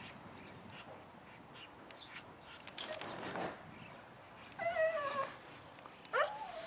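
A pet animal's whining calls: a wavering call that steps down in pitch about halfway through, and a short rising call near the end.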